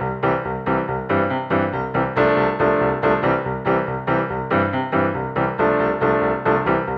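Background music: a fast piano tune with repeated notes at a steady beat, about four notes a second.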